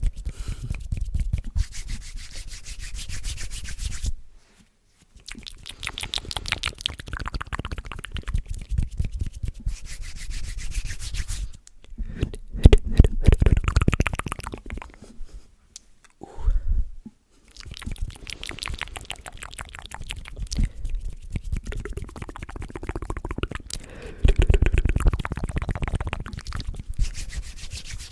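ASMR mouth sounds made close to the microphone: stretches of rapid clicking separated by a few short pauses.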